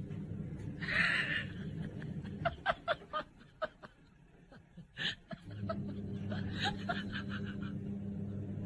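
A person snickering softly in a run of short, quick bursts of laughter, over a steady low hum.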